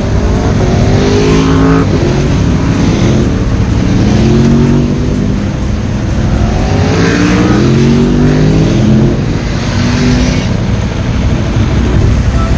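Several motorcycles accelerating away one after another, each engine note rising as it pulls out and moves off.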